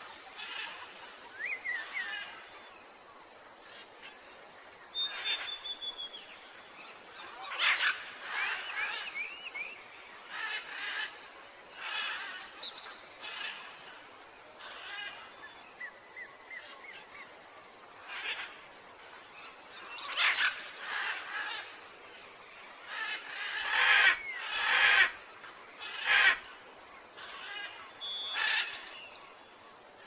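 Songbirds calling and chirping again and again, in short chirps, trills and rising and falling whistles, over the steady rush of a small forest stream cascading over rocks. A few sharp clicks stand out near the end.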